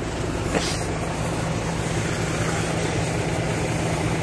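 Isuzu 6HL1 six-cylinder diesel engine idling steadily, with one light knock about half a second in.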